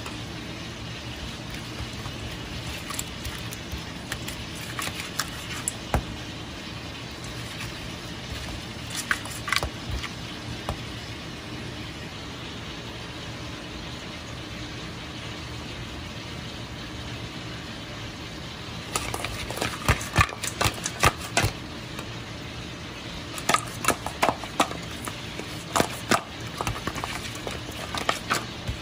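Pieces of lobster and crab shell clacking against a stainless steel bowl as they are tossed by hand, in quick clusters of clicks in the second half, over a steady machine hum.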